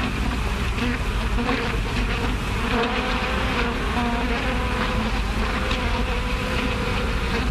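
A swarm of bees buzzing: a dense, steady drone made of several wavering pitches, heard on an early sound-film soundtrack.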